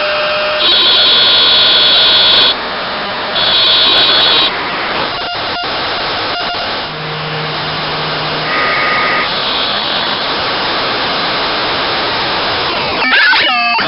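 Noise box synthesizer played through its body contacts: a loud, harsh noise with high steady tones cutting in and out in blocks, a few sharp clicks, and several quick falling pitch sweeps near the end.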